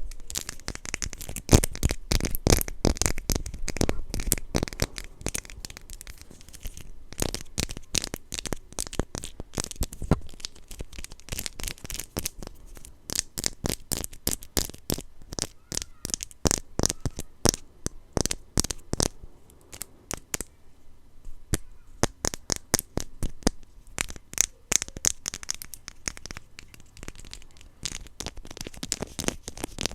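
Blind-box packaging being handled and torn open close to the microphone: a dense, irregular run of sharp crackles and clicks, with a few short lulls.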